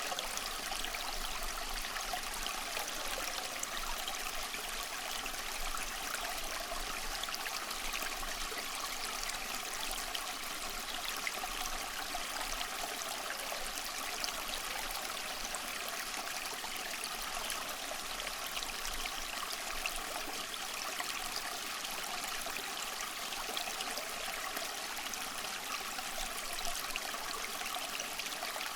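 Flowing stream water running steadily, an even rushing and trickling with no breaks.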